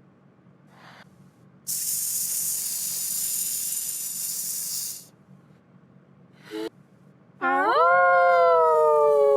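Animal-sound imitations, edited: a long hiss lasting about three seconds, then a long howl-like call that holds its pitch and drops off near the end.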